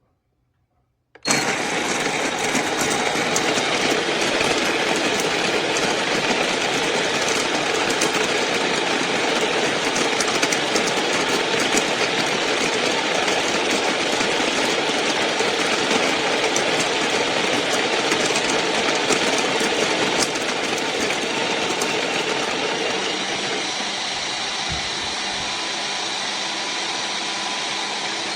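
Ollygrin electric conical burr coffee grinder running, its motor and burrs grinding coffee beans in one continuous run that starts abruptly about a second in. It becomes a little quieter and steadier for the last several seconds and cuts off at the end.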